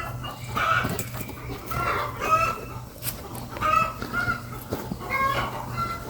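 Chickens clucking, a string of short calls one after another.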